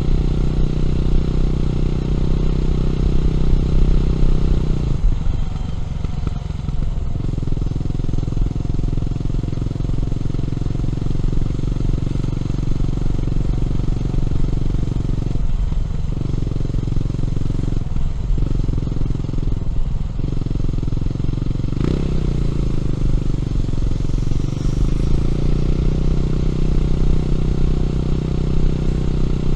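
Honda CB400SS single-cylinder engine running through a Yamamoto A-spec exhaust while the bike is ridden. The engine note breaks off briefly several times, and about two-thirds of the way in there is a sharp click, after which the pitch dips and climbs back over a few seconds.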